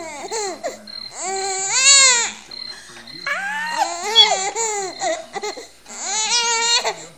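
A baby squealing and laughing in several long, high-pitched outbursts whose pitch rises, falls and wavers.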